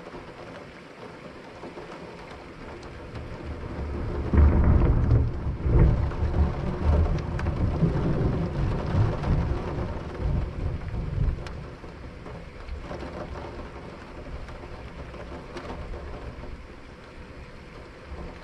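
A long roll of thunder that swells about four seconds in, is loudest for a couple of seconds, and rumbles on for several more before dying away, over steady rain.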